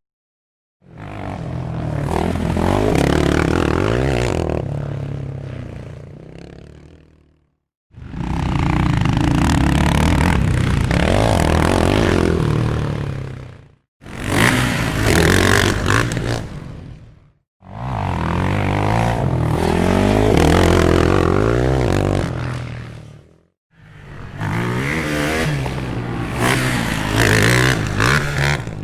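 Off-road rally vehicles passing by one after another, five separate passes. Each engine swells in, revs with its pitch swinging up and down, then fades or cuts off before the next one.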